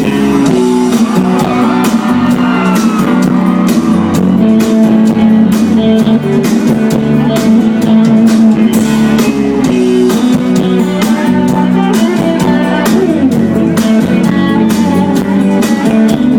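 Live band playing an instrumental passage of a sertanejo song: guitars carrying the melody over a drum kit keeping a steady beat.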